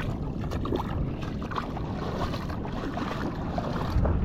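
Wind rushing over the microphone with breaking surf behind it: a steady low, noisy rush that grows louder near the end.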